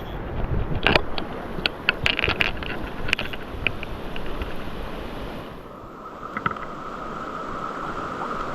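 Rushing mountain-stream water, with scattered clicks and knocks in the first few seconds. About five and a half seconds in, the sound turns duller and more muffled.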